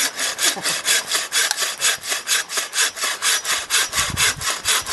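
Hand saw cutting through wood in quick, even strokes, about six a second, with a few low knocks about four seconds in.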